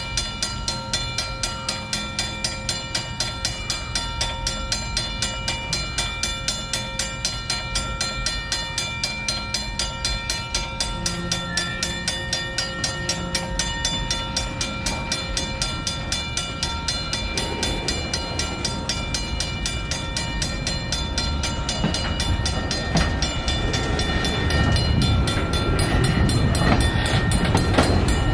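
Railroad grade-crossing bell ringing in a steady, even rhythm over the low rumble of a slow freight train's tank cars rolling across the crossing. The wheel rumble grows louder in the second half.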